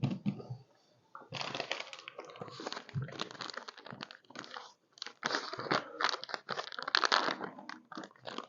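Crinkling and crackling of a plastic drink-powder sachet being handled, opened and emptied.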